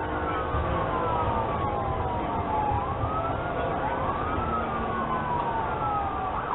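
Police siren wailing, its pitch rising and falling slowly over a few seconds at a time, over the steady low rumble of a car driving at speed.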